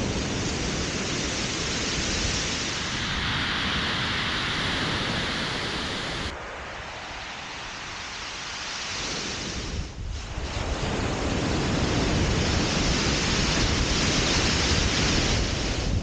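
Surf breaking and washing on a shingle beach, with wind buffeting the microphone. About six seconds in the sound turns quieter and duller for a few seconds, then comes back up.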